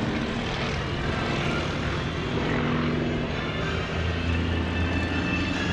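Yak-55 aerobatic plane's radial engine and propeller droning steadily overhead through an aerobatic manoeuvre.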